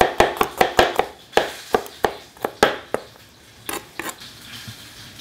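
Chef's knife slicing garlic cloves thinly on a cutting board: quick knife taps about five a second, slowing to about three a second and stopping about three seconds in, then a couple of lighter knocks.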